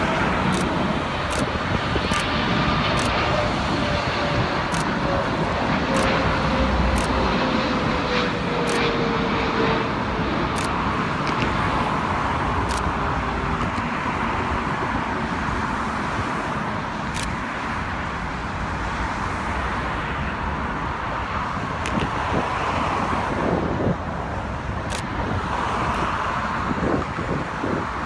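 Jet engines of a Boeing 777-300ER (GE90s) running with a steady rush, a whine falling slowly in pitch over the first ten seconds, with road traffic noise mixed in.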